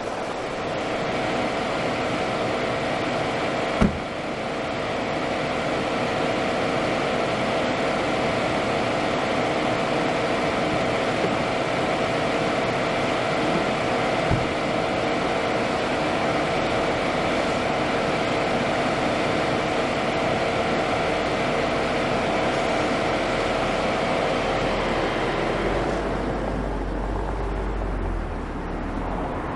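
A car engine running steadily, with a deeper low rumble building over the last few seconds as it pulls away. Two short knocks sound in the first half.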